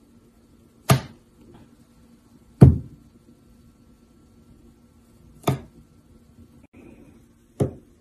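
Four sharp knocks on a kitchen countertop, spaced a second or two apart, from fruit and the bird's 'bonking' against objects on the counter.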